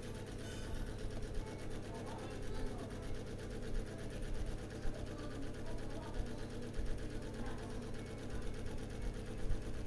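Steady low machine hum, several steady tones running on without change.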